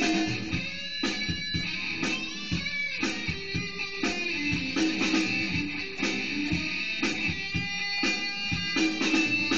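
Les Paul copy electric guitar played lead, improvising over a backing track with a drum machine beat.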